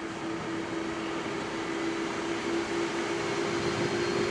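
Airbus A330's jet engines spooling up as takeoff thrust is applied, heard inside the cockpit: a steady rumbling hum with a low drone that slowly grows louder.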